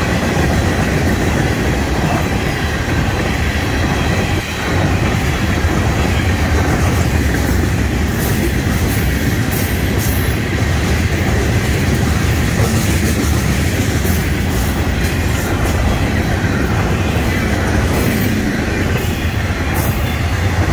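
A long Florida East Coast Railway freight train's cars (tank cars, hoppers and trailers on flatcars) rolling past at speed: a steady heavy rumble with rhythmic wheel clatter on the rails. Short high-pitched squeaks come about eight seconds in and again near the end.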